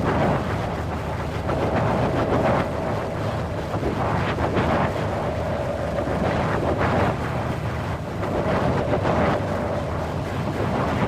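Strong wind blowing steadily, swelling in gusts every two seconds or so, with a faint steady whistling tone that comes and goes beneath it.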